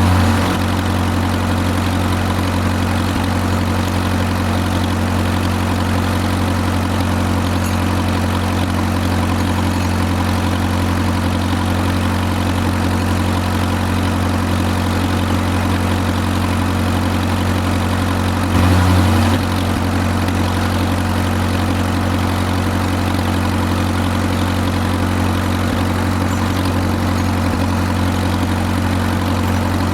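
Farmall M tractor's four-cylinder engine idling steadily while warming up, briefly louder for about a second around two-thirds of the way through.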